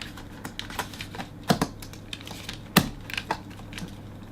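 The 2019 27-inch iMac's RAM compartment cover being snapped back into place on the back of the computer: a few sharp clicks, the loudest about three seconds in.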